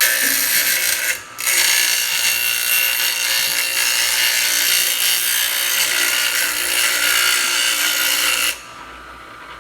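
A piece of metal ground against a spinning bench grinder wheel, a loud steady hiss that breaks off briefly about a second in and stops near the end, leaving the grinder motor running with a faint steady whine.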